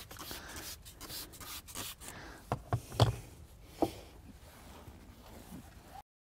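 A microfiber cloth rubbing over a wet, soapy painted door sill: a hissy wiping sound. A few sharp knocks come between about two and a half and four seconds in, the loudest around three seconds. The sound cuts off suddenly near the end.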